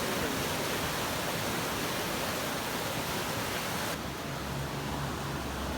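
Flash-flood debris flow on Hermosa Creek, muddy burn-scar water and debris rushing with a steady, loud roar. About four seconds in, the hiss suddenly thins and a low steady hum comes in underneath.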